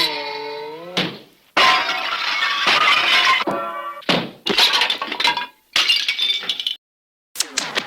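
A run of separate cartoon sound effects: a ringing tone that fades over about a second, then several crashes of breaking glass with clinking pieces, each cut off by a short gap.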